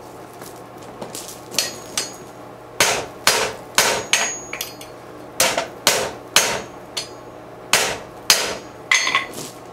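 Blacksmith's hammer striking white-hot, borax-fluxed steel on an anvil to set a forge weld: about a dozen sharp blows in uneven groups, starting about a second and a half in. Some blows leave a short, high anvil ring.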